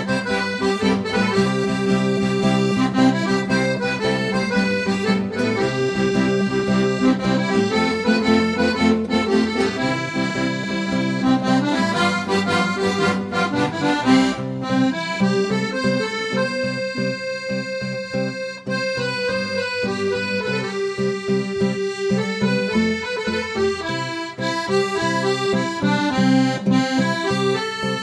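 Instrumental passage of Catalan havanera music with no singing: an accordion plays the melody in sustained notes over the band's accompaniment.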